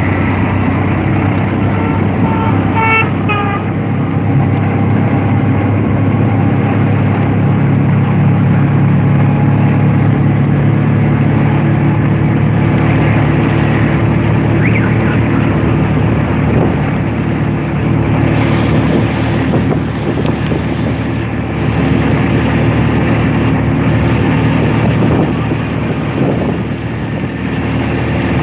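Engine and road noise heard from on board a vehicle driving along a street, a steady drone that eases off briefly near the end.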